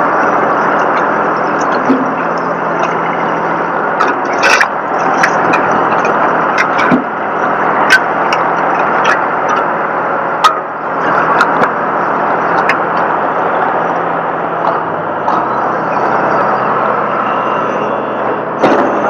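A motor vehicle engine running steadily, with scattered sharp clanks and knocks over it.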